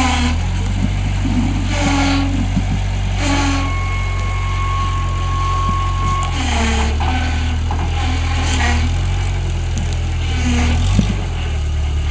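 Off-road rock-crawler buggy's engine running steadily at low revs as the buggy crawls up a rock face, with short bursts of noise every second or two.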